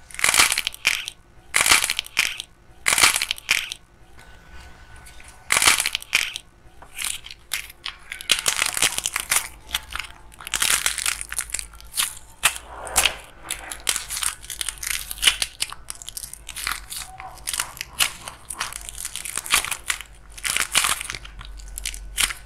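Hardened, glossy clay shells over soft clay cracking and crunching as they are squeezed by hand. A few separate loud cracking bursts in the first six seconds, then denser, almost continuous crackling as the shells break up into the soft clay.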